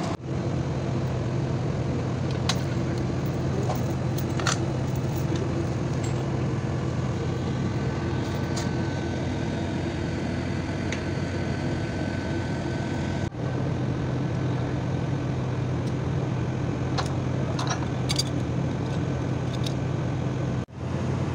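Steady drone of running heavy machinery, with a few sharp metallic clinks from work on the excavator boom. The sound drops out briefly twice.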